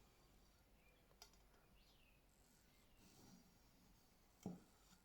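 Near silence: quiet room tone, with one short soft knock near the end.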